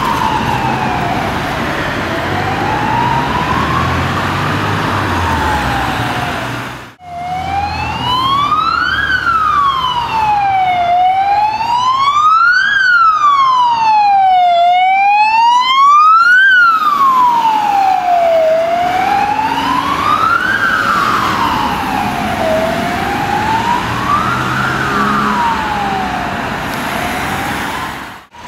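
Wailing sirens of Belgian emergency vehicles, the pitch sliding slowly up and down. First an ambulance's siren heads away. After a sudden break about seven seconds in, a Volvo medic car's siren comes closer, is loudest about halfway through, then fades as the car drives off.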